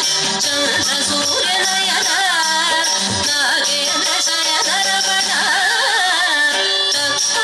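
Carnatic music for Bharatanatyam dance: a voice sings a wavering, ornamented melody over a steady drone, with a light high tick keeping time about twice a second.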